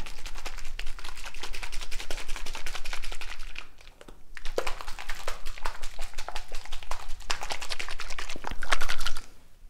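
Small lidded plastic jar of water and neon slime powder shaken hard, the water sloshing and rattling inside in quick strokes. The shaking breaks off briefly about four seconds in, then carries on and stops shortly before the end.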